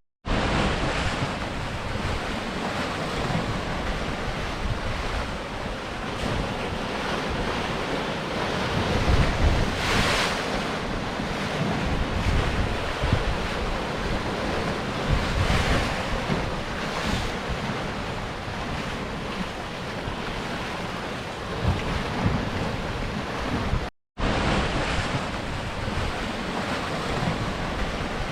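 Sea surf breaking and washing over rocks, a continuous rushing wash that swells louder around ten seconds in and again around sixteen seconds. The sound cuts out completely for an instant a little before the end.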